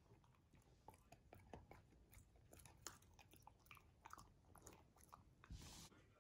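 Beagle puppy gnawing on a chew, faint irregular crunching and clicking of teeth on the chew, with a brief louder rustle near the end.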